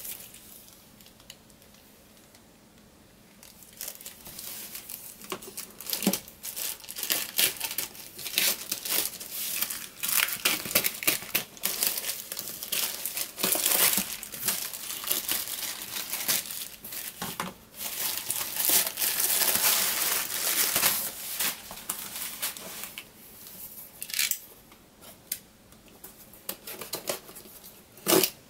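Plastic parcel wrapping crinkling and rustling in long stretches of dense crackle as it is pulled open and off a box by hand. There is a single sharp knock near the end.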